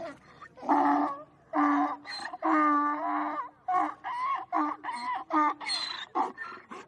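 Donkey braying: a series of pitched calls, the first few long and drawn out, then quicker, shorter ones near the end.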